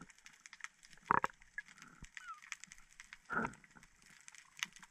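Faint underwater sound picked up by a diving camera: a scattering of sharp clicks and crackle, with two short, low grunt-like sounds, about a second in and again about three and a half seconds in.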